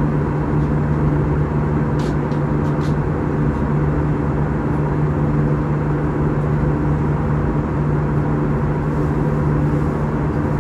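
Steady drone of a jet airliner's engines and airflow heard inside the passenger cabin, with a strong low hum. A few light clicks come about two to three seconds in.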